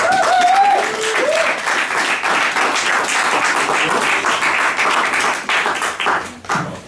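Audience applauding after a poetry reading. The clapping starts suddenly, a single voice whoops briefly at the start, and the applause dies away near the end.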